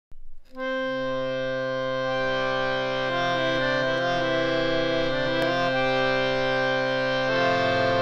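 Sursargam three-reed hand-pumped harmonium playing sustained reedy notes: a low note held steady under a few changing notes above it. The sound starts about half a second in.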